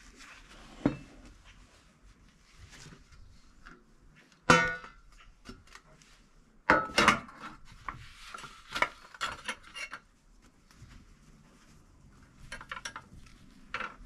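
Cake mold and serving tray clattering and knocking as a freshly baked cake is turned out of the mold onto the tray. A loud ringing knock comes about four and a half seconds in and a cluster of knocks around seven seconds, with lighter taps scattered between.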